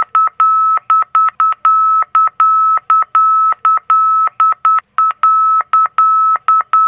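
ILS middle marker beacon audio: a steady tone of about 1300 Hz keyed on and off in alternating dots and dashes, several a second. It signals that the aircraft is passing over the middle marker, about half a nautical mile from the runway threshold, where the pilot decides whether to land or go around.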